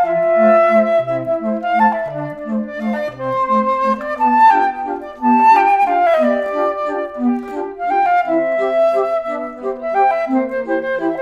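Background music: a woodwind melody of held, sliding notes over a steady line of short, repeated bass notes.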